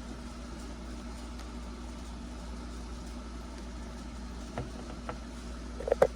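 Steady low hum with two light clicks, then a louder quick cluster of clicks just before the end.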